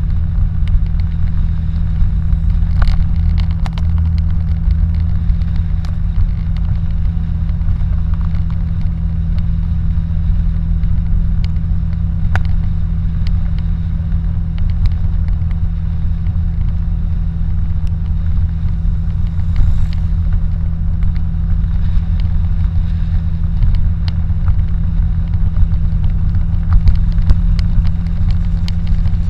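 Car cruising at steady speed on a highway, heard from inside the cabin: a steady low drone of engine and tyre rumble, with occasional small clicks and rattles.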